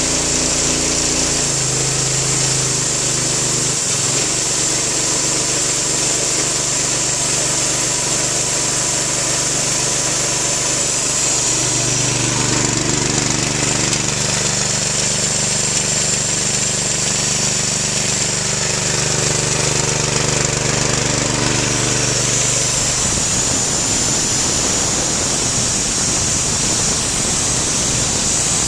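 Harbor Freight Predator 212cc single-cylinder engine running, belt-driving a military air compressor's two-cylinder pump. The engine note shifts twice in the first few seconds and again about twelve seconds in, and a rapid mechanical clatter joins it over the last few seconds.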